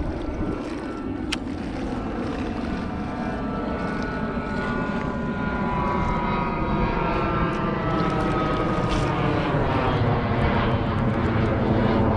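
A passing engine's droning hum, growing louder, its pitch slowly gliding down before shifting again near the end.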